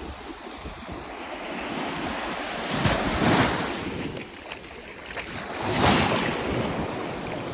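Sea waves breaking and washing up the beach, two surges a few seconds apart, with wind buffeting the microphone.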